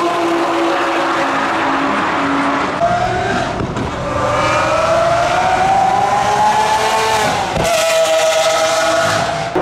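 Supercar engines at high revs speeding past on a race track, their note climbing steadily as they accelerate. The sound changes abruptly twice as one car's note gives way to another's.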